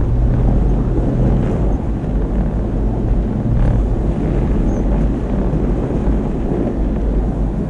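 Toyota FJ Cruiser's 4.0-litre V6 running steadily as it drives over a snowy dirt road: a constant low engine drone mixed with tyre and road rumble.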